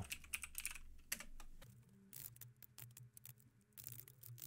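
Faint typing on a computer keyboard: scattered quick key clicks, with a faint low steady hum coming in about a second and a half in.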